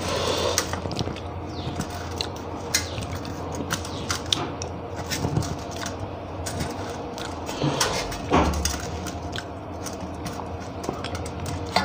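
Fingers wiping and scraping the last of the curry off a stainless steel plate, with many short, irregular clicks and scrapes on the metal and mouth sounds of licking the fingers clean.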